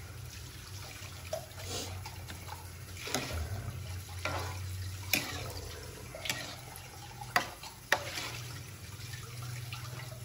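Ladle stirring a large pan of arroz caldo, the rice and broth sloshing, with a few sharp clinks of the ladle against the pan in the second half.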